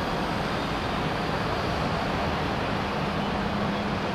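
Steady rumble and hiss of a bus interchange, with a double-decker bus idling at the boarding berth. A low, steady hum comes in about two and a half seconds in.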